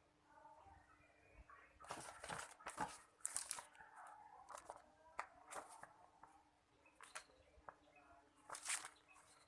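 Packaging being handled during unpacking: short bursts of crinkling and rustling, like plastic wrap or a bag being crumpled and torn.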